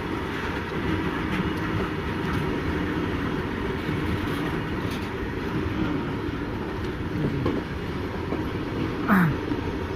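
Freight train hauled by a WAG-9 electric locomotive rolling past, with the steady rumble of its wheels on the track and no horn sounded. About nine seconds in, a brief louder sound falls in pitch.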